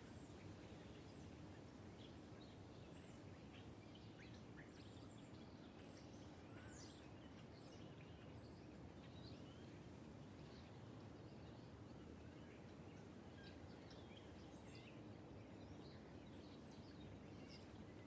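Faint birdsong: many short, high chirps and trills from several birds, scattered throughout over a steady low background hiss.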